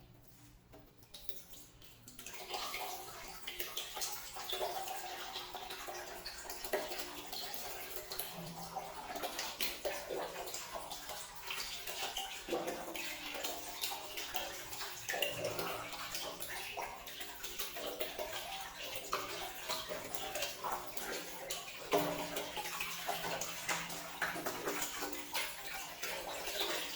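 Water running and splashing, starting about two seconds in and going on steadily with irregular splashes and a few sharper spatters.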